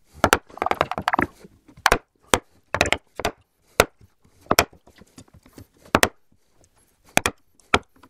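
Wooden mallet striking a bench chisel, chopping out the waste between finger joints in a spruce board: a dozen or so sharp wooden knocks at an uneven pace, about one every half second to a second.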